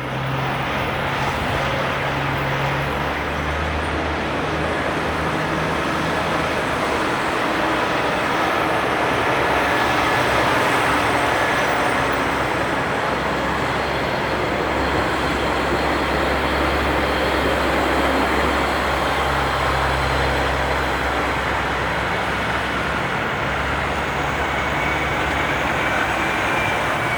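City street traffic: heavy vehicle engines running with a steady low hum under continuous road noise.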